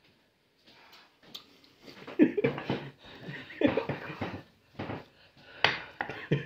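A man's short, breathy bursts of laughter and heavy breathing, coming in irregular spurts and growing louder towards the end, as he suffers the burn of an extremely hot chili chip.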